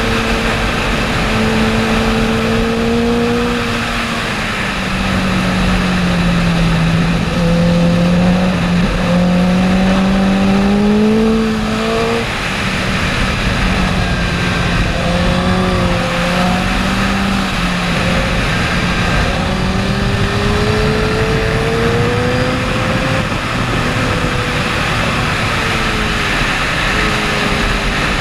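Honda sportbike's inline-four engine running hard on track, its pitch falling and climbing again several times, under a heavy rush of wind on the on-board microphone.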